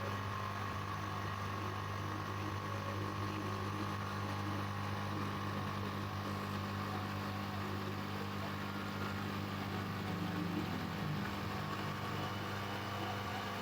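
A steady machine drone with a low hum and a fainter high tone, holding an even level throughout.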